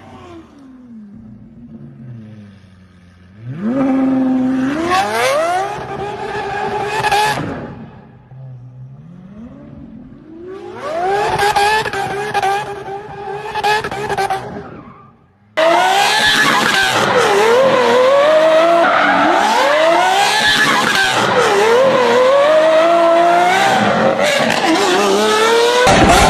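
Lamborghini V12 engine revved from idle twice, each time climbing quickly, holding high for a few seconds and falling back to idle. About two-thirds of the way through it cuts suddenly to the car driven hard and loud, the engine pitch climbing and dropping again and again as it accelerates through the gears.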